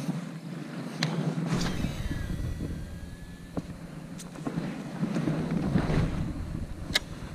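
Cast with a baitcasting reel: a few sharp clicks from the reel and a faint whine that slides down in pitch for about a second as the spool spins out, over a low rumble of wind and water noise.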